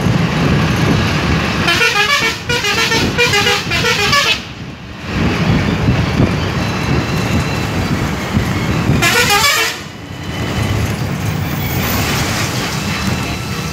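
Steady rumble of a moving train, heard from inside a carriage. A horn sounds twice over it: a long blast about two seconds in, and a short one around nine seconds. Near the end the rushing noise of a wagon passing close alongside rises.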